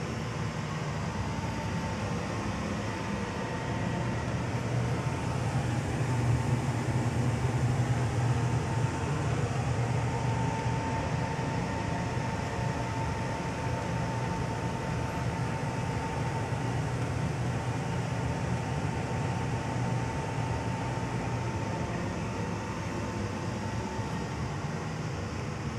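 Steady low mechanical hum and rumble with a thin, steady high whine over it, swelling a little a few seconds in.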